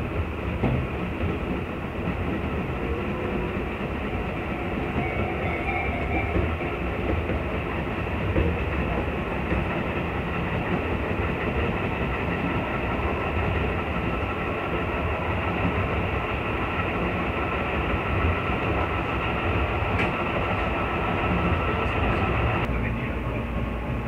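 Tobu 8000 series electric commuter train running, heard inside the passenger car: a steady rumble of wheels and running gear with a faint steady whine. About 23 seconds in, the higher part of the noise drops away suddenly.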